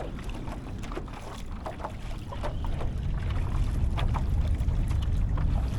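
Water lapping and splashing lightly against a kayak hull, in short scattered splashes. Under it runs a low rumble that grows louder about halfway through.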